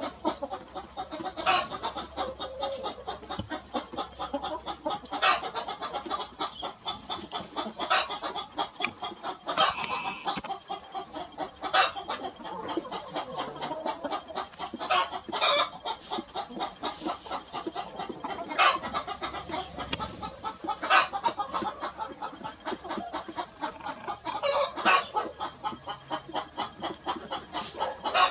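Chickens clucking continuously, many short calls overlapping, with a louder, sharper call standing out every few seconds.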